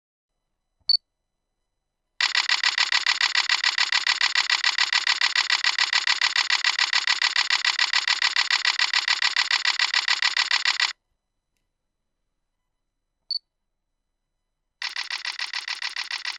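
Camera shutter firing in continuous burst mode: two long runs of rapid, evenly spaced shutter clicks, each run preceded by a short high beep.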